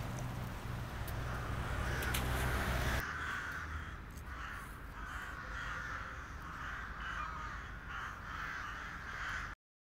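Crows cawing again and again, over a low rumble during the first three seconds; the sound cuts out abruptly just before the end.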